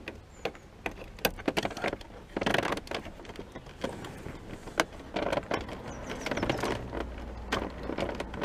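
Handling noise from work on dashboard wiring: irregular clicks and knocks of plastic connectors and multimeter probes, with short bursts of rustling from a knitted sleeve brushing close by.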